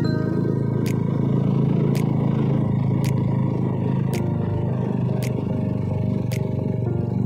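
Motorcycle engine running steadily while riding, mixed with road and wind noise, with a light click about once a second.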